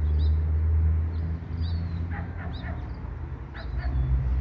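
A few short, high animal cries, spaced over the second half, over a steady low rumble.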